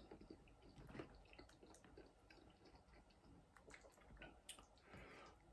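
Faint eating sounds: quiet chewing of pasta, with small scattered clicks of a metal fork against a foil food tray.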